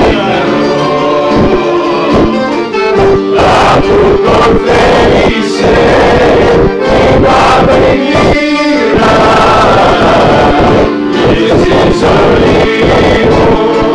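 Live Greek folk music: several men singing together in unison, accompanied by a bouzouki, an accordion and an acoustic guitar.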